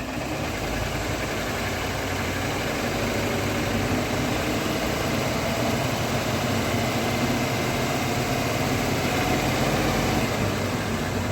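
Range Rover L322 with the 4.4-litre engine running, a steady vehicle hum that grows slightly louder over the stretch.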